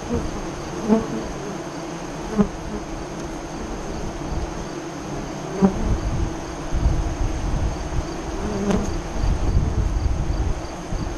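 Honey bees buzzing at the hive entrance, with a few short, louder buzzes as single bees fly close past.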